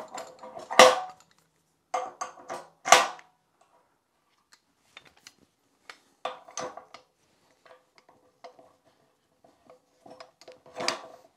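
Sharp metal clanks and knocks as a bench vise is set onto a steel pipe riser and its locking handle is worked, the loudest about one and three seconds in and another near the end, with smaller clicks between and a faint metallic ring after some.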